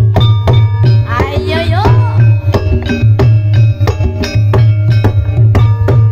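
Live Javanese gamelan music for a kuda lumping dance: struck bronze kettle gongs and metallophones ringing in a steady, even beat over hand drums, played loud through a large sound system with a heavy bass. A short gliding voice call rises and falls about a second in.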